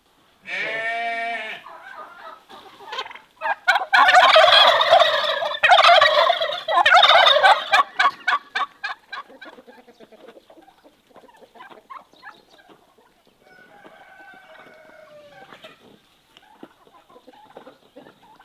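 A turkey gobbles once about half a second in, a rapid rattling call. Then comes a loud rushing clatter lasting about four seconds that trails off into a run of quick ticks, and later chickens cluck softly.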